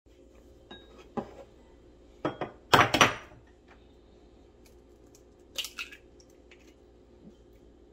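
An egg knocked against the rim of a ceramic bowl and its shell broken open by hand: a few sharp clinks and taps, the loudest cluster about three seconds in, then a shorter crackle near six seconds as the shell is pulled apart.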